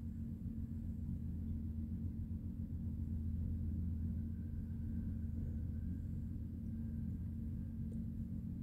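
Amtrak passenger cars rolling past, a steady low rumble of wheels on the rails.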